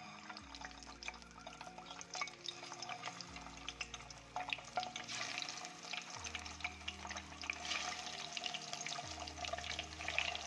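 Spice-coated boiled eggs frying in hot oil in a non-stick kadai, sizzling and crackling, the spitting growing busier as more eggs go into the pan. Soft background music with low notes underneath.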